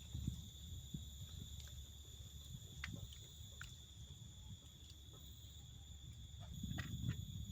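Insects trilling steadily in one high, unbroken tone, over a low rumble, with a few faint clicks.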